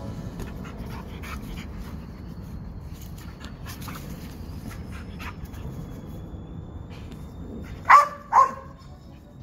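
Dog barking twice, two short loud barks about half a second apart near the end, over a low background of scattered small knocks and scuffles.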